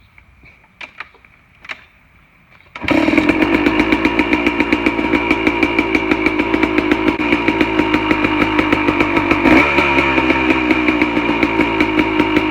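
A few light knocks, then about three seconds in a KTM two-stroke dirt bike engine fires up abruptly and idles with a rapid, even popping beat.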